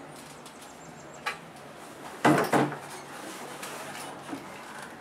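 A person dropping onto a bed: a short, loud thud and rustle of bedding about two seconds in, after a faint click, over a faint low steady hum.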